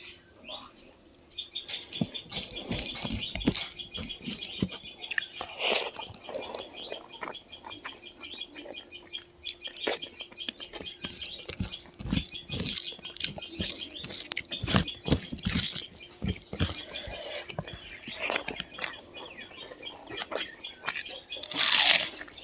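Close-up eating sounds of pork and rice: irregular wet chewing, lip-smacking and mouth clicks. A faint steady pulsing high trill runs behind them, and there is a louder rustling smear near the end.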